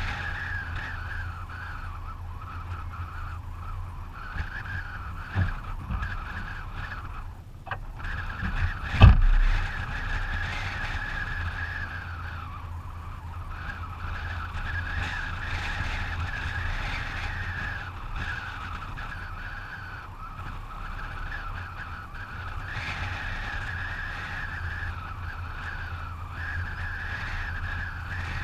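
Car driving at speed, with steady road and tyre noise. A single sharp thump comes about nine seconds in.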